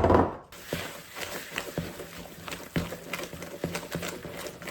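A loud thump right at the start, then light, irregular clicks and taps of a kitchen utensil against a mixing bowl as the cake mix is worked.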